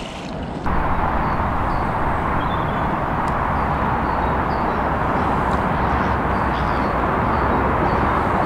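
Steady rushing wind noise that gets abruptly louder under a second in and then holds.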